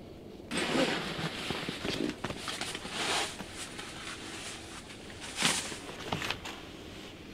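Close rustling and scuffing handling noise, like clothing and gear shifting inside a fabric ground blind. It starts about half a second in, swells three times and fades near the end.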